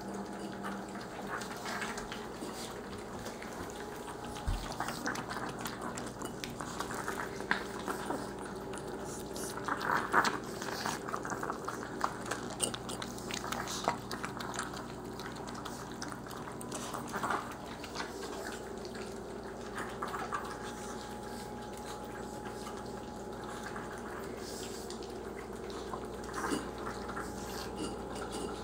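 Chihuahuas munching and chewing food: irregular small smacking clicks and crackles, with a faint steady hum underneath.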